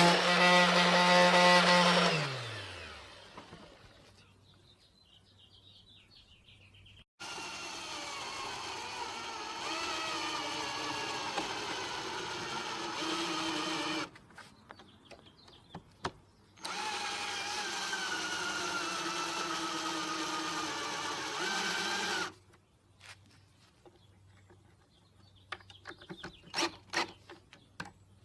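Electric power drill running in runs of several seconds. The first spins down about two seconds in, and in the later runs the pitch sags slowly as if under load. A series of sharp knocks comes near the end.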